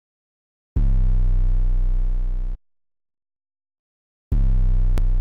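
Two deep electronic tones, each held about two seconds and cutting off abruptly. The first starts just under a second in and the second about four seconds in, with a short click near the end.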